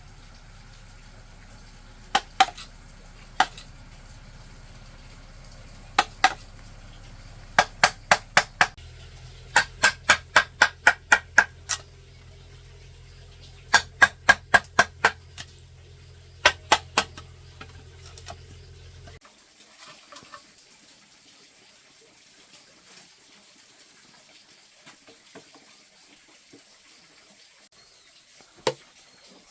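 Hammer blows in runs of several quick strikes with short pauses between, each with a brief ring, as in driving nails into bamboo. A steady low hum runs under them and cuts off about two-thirds of the way through, followed by one more knock near the end.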